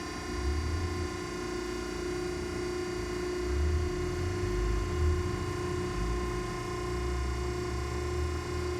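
Steady machine hum and whine with several fixed tones that do not change in pitch, over an uneven low rumble, typical of the vertical cardboard baler's 15 hp electric motor and hydraulic pump running.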